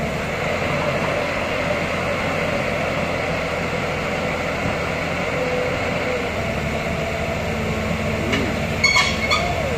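Heavy diesel machinery, chiefly a Tata Hitachi crawler excavator's engine, running steadily under load as the excavator pushes on a stuck lorry's trailer. A few short metallic clanks come near the end.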